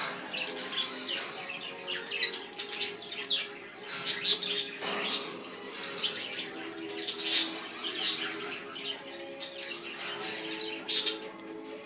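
Caged parrots chirping and squawking in many short, sharp calls, loudest in bursts about four, seven and eleven seconds in, over soft background music.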